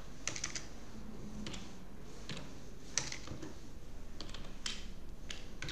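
Computer keyboard keystrokes: irregular, scattered clicks as text is typed and deleted.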